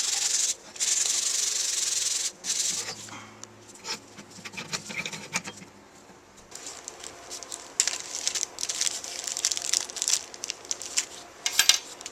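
Abrasive rubbing strokes, sanding or scraping, for the first couple of seconds with a short break in between. Then lighter scattered clicks and small rattles of parts being handled.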